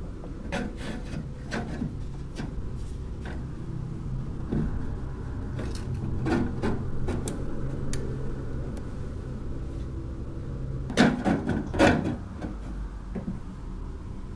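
Wooden furniture panel being lifted and shifted by hand: scattered wood knocks, creaks and rubbing, with two louder knocks close together near the end, over a steady low hum.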